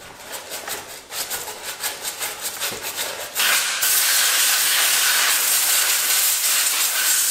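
A quick run of rasping strokes, then about three and a half seconds in an aerosol can of brake cleaner starts spraying in a steady, loud hiss.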